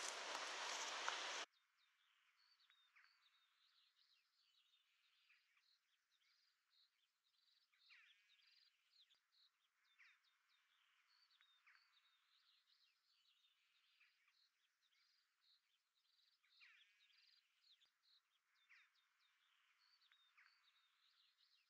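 Faint birdsong: small birds chirping and trilling in short, repeated phrases. A steady hiss during the first second and a half cuts off abruptly.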